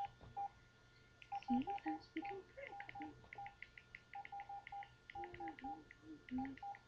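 Mobile phone keypad beeping as its keys are pressed: many short beeps in quick runs, one beep per key press.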